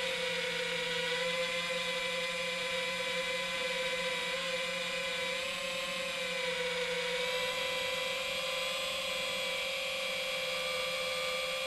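High-pitched whine of an FPV quadcopter's brushless motors (T-Motor Velox 2207 2550KV) spinning its propellers at fairly steady throttle, the pitch drifting slightly up and down.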